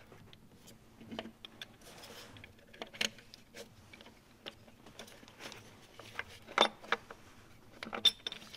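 Scattered small metallic clicks and clinks as a new diesel fuel injector and its seal plate are handled and worked into the injector bore of an Audi 3.0 TDI engine. The sharpest knocks come as a pair about two-thirds of the way in and once more near the end.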